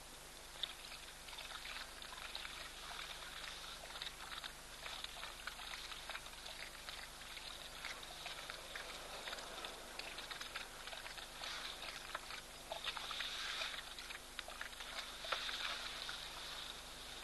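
Spotted hyenas lapping water at the water's edge: a fast, irregular run of small wet clicks and splashes, a little louder a few seconds before the end.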